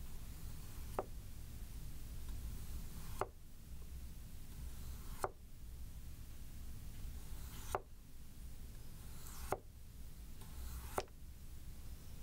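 A 210 mm Hatsukokoro (Yoshikane) SKD gyuto slicing through a raw potato, its edge tapping the cutting board at the end of each stroke: six short knocks, one every two seconds or so.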